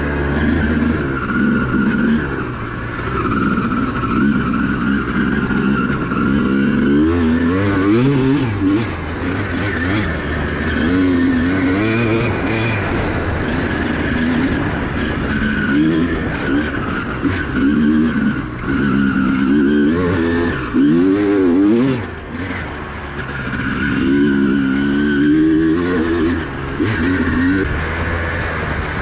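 Honda CR250R's 250 cc two-stroke single-cylinder engine, heard from on the bike as it is ridden, revving up and falling back again over and over.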